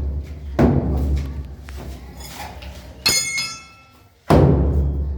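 Heavy demolition blows breaking brickwork. There are three dull, hard thuds, each with a long fade, and the middle blow, about three seconds in, rings with a metal clang.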